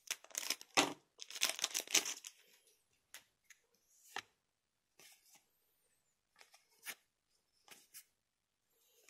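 Weiß Schwarz trading-card booster pack wrapper crinkling as it is torn open, for about the first two seconds. Then single soft flicks, roughly one a second, as the cards are slid one by one from the front of the stack to the back.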